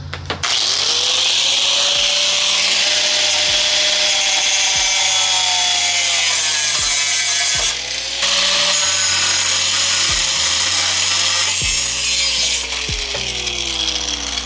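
A power tool cutting or grinding with a loud, steady rasping hiss, which breaks off for about half a second around eight seconds in and then carries on. A bass-heavy beat plays underneath.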